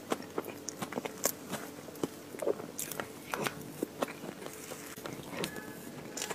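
Close-miked eating of crumbly chocolate ice cream cake: a wooden spoon scooping and scraping, with many irregular crackly clicks of biting and chewing.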